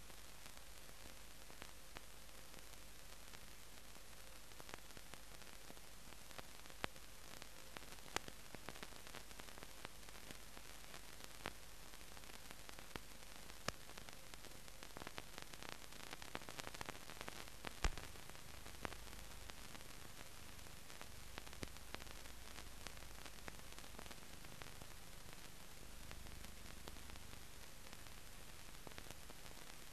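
Blank soundtrack of a silent film transfer: steady faint hiss with a low hum underneath and scattered clicks and crackles, one louder click a little past the middle.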